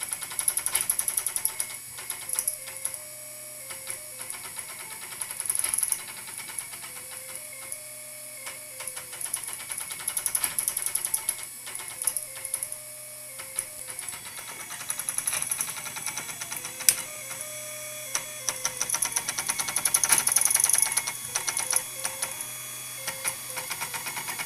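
Homebuilt RepRap 3D printer's stepper motors running a print: quick clanking runs of steps, with short musical tones that rise and fall every few seconds. The smoother, musical motor is the X axis from an old HP IIcx scanner. The clanking is the dot-matrix printer carriages on the Y and Z axes, stepping a coarse 0.4 mm per step without micro-stepping.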